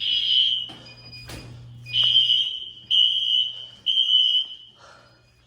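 Building fire alarm sounders going off: a loud, high, steady-pitched beep repeated in groups of three with a pause between groups, the temporal-three evacuation pattern. A fainter second alarm tone chirps between the beeps, and there are two sharp knocks about a second in.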